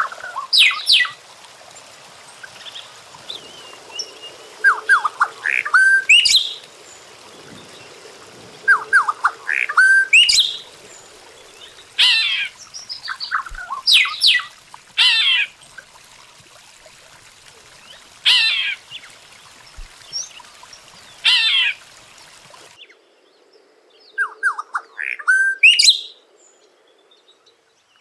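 Golden-winged cacique (tecelão) singing: a run of separate phrases a second or two apart. Some are short clear notes leaping to a high note, others are rasping downward notes. The background noise cuts out abruptly near the end.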